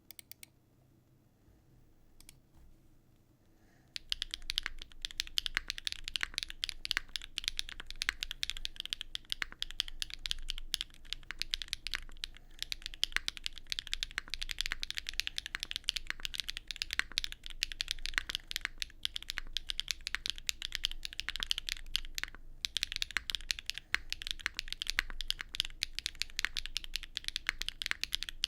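Continuous fast typing on a Neo65CU mechanical keyboard fitted with Keygeek M3 linear switches, a dense run of clacky, slightly metallic keystrokes with a solid bottom-out. The typing starts about four seconds in, after a few faint clicks.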